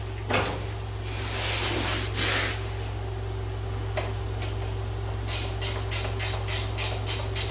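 Hand ratchet wrench working a bolt on an ATV's front suspension: a few scrapes and knocks of the tool, then from about five seconds in a quick, even run of ratcheting strokes, about four a second.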